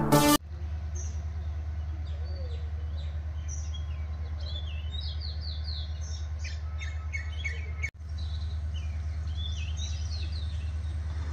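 Small birds chirping in quick runs of short, high, falling notes, over a steady low rumble.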